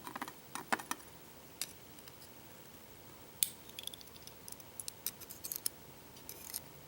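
Sparse small metallic clicks and taps of a pin-tumbler lock being taken apart, its driver pins and springs handled chamber by chamber. The clicks are scattered, with a busier run of quick ticks in the middle.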